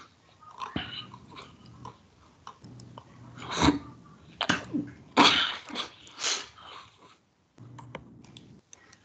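Computer keyboard keys clicking as a password is typed, among several louder short noises close to a microphone.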